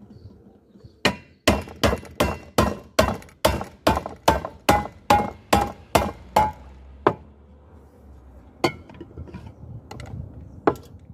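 Hammer striking a metal pressure cooker in a quick run of about fifteen blows, roughly two and a half a second, each with a short metallic ring; then two single blows near the end.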